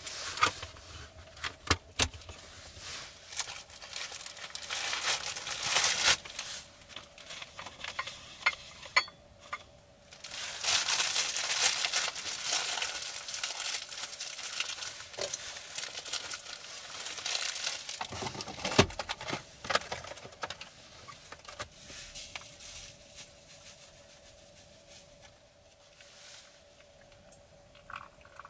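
Crinkling and rustling with scattered clicks and light knocks of things being handled, over a faint steady hum.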